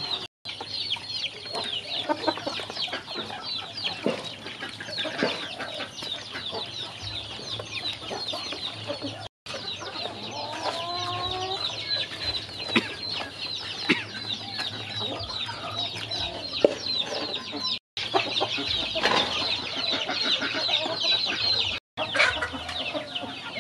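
Ducklings peeping constantly, many short high calls overlapping, with chickens clucking now and then. The sound drops out for a moment a few times.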